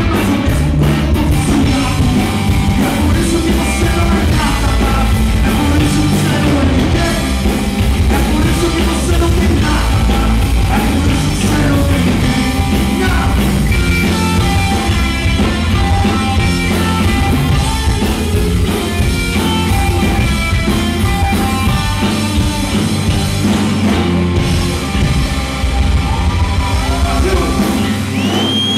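Rock band playing live: electric guitar, bass guitar and drum kit, with a male singer.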